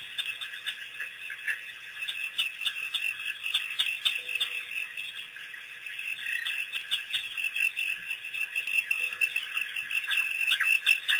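A chorus of frogs calling steadily, many short high chirps overlapping, with a few louder calls near the end.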